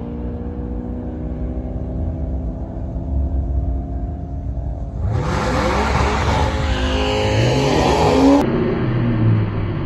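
Drag-racing cars at the starting line: engines idling steadily, then about halfway through a car's V8 revving hard, loud and rough, with the engine pitch climbing and falling.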